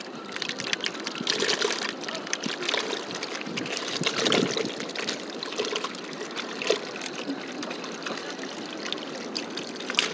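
Water splashing and trickling in a bucket of live akule (bigeye scad), the fish stirring and flapping in it, with many small irregular splashes.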